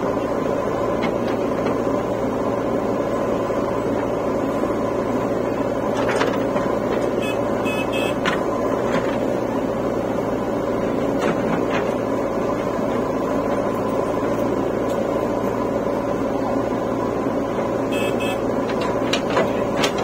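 Diesel engines of a JCB 3DX backhoe loader and a farm tractor running steadily as the backhoe loads soil into the tractor's trailer. A few short knocks and clanks come now and then, mostly in the middle and near the end.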